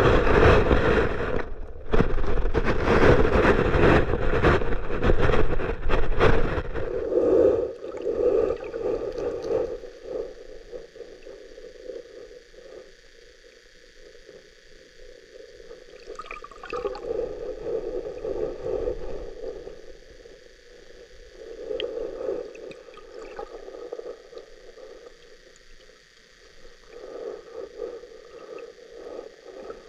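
Creek water heard through a submerged GoPro Hero8: loud, crackling rushing for the first seven seconds or so, then a quieter, muffled flow that swells and fades every few seconds.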